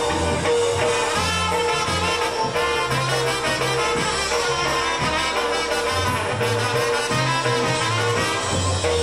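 Live polka band playing a dance number: trumpets and other brass carry the tune over a stepping bass line and drums.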